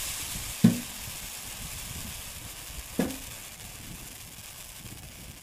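Snow melting on the hot galvanized sheet-metal top of a homemade wood-burning tent stove, sizzling with a hiss that slowly fades; the sizzle shows the surface is hot enough to boil water. Two sharp knocks cut through it, the louder about half a second in and another about three seconds in.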